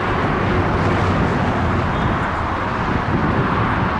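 Boeing 777 jet engines heard from the ground as the airliner flares to land, a steady rumbling jet noise mixed with wind buffeting the microphone.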